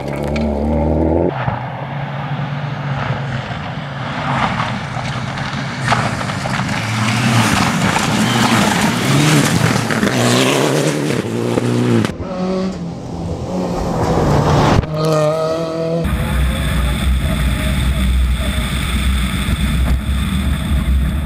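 Rally cars at speed on a gravel stage, engines revving up and down through the gears over the hiss of tyres on loose gravel. The sound changes abruptly several times, ending on a steadier low engine drone.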